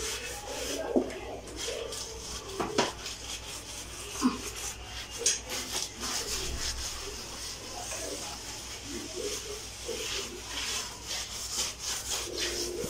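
Soapy sponge scrubbing ceramic wall tiles: a repeated rasping rub, with a few light knocks along the way.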